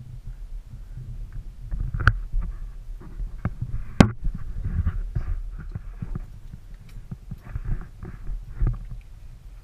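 Water sloshing and splashing against a small skiff's hull, over a low rumble, with several sharp knocks; the loudest knocks come about two and four seconds in.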